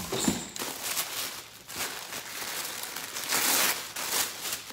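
Tissue paper crinkling and rustling as a wrapped clothing bundle is unwrapped by hand. It is loudest in a burst about three seconds in.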